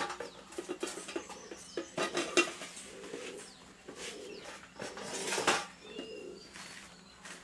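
Kitchenware clattering in a few short bursts, with a dove cooing softly between them and small birds chirping faintly.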